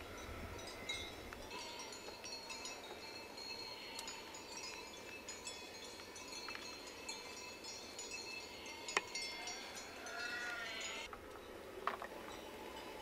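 Alpine ibex sparring: a few sharp single knocks, the loudest about two-thirds of the way in and another near the end, typical of horns striking. Under them runs a faint high ringing like small bells, and a short call sounds shortly before the end.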